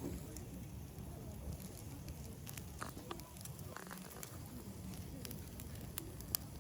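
Wood fire crackling in a Picogrill fire pit, with scattered sharp pops over a low steady rumble.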